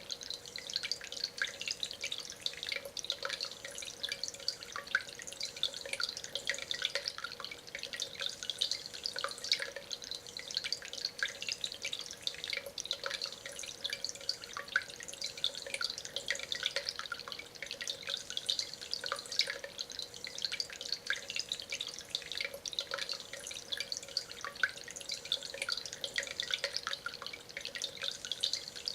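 Concrete and stone tabletop water fountain running: water trickling and dripping over the stone in a continuous patter of small plinks, with a faint steady hum underneath.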